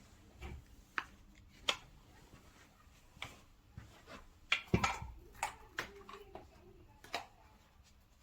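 A dozen or so scattered, sharp clicks and knocks at uneven intervals, as of hard objects being handled and set down; the loudest comes a little before the middle.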